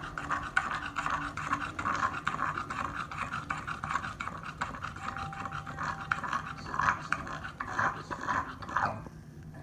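Bulldog panting hard with fast, rasping breaths, worn out after a walk. The breathing pauses briefly near the end.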